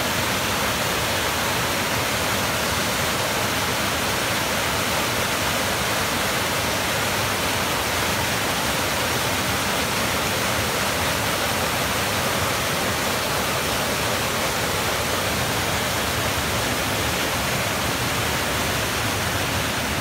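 Mountain creek cascading down a steep rock slab as a waterfall: a steady rush of whitewater.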